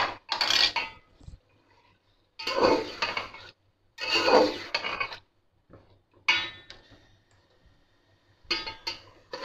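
Metal spatula scraping and stirring chunks of beef through tomatoes and oil in a metal cooking pot, in five short bouts, one with a ringing clink of metal on the pot.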